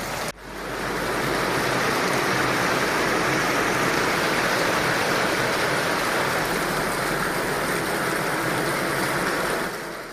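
Heavy rain pouring down in a steady, even hiss that stops abruptly near the end.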